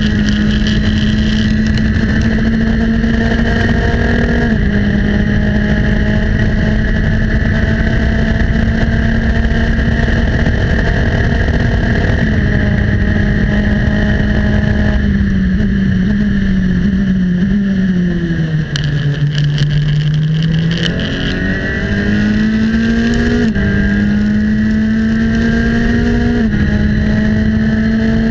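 Formula Enterprises 2 (FE2) open-wheel race car engine heard onboard at high revs with wind rush, shifting up through the gears under full throttle. About halfway through the pitch falls and the level dips while braking, with short throttle blips on the downshifts, then the engine climbs again and shifts up twice more.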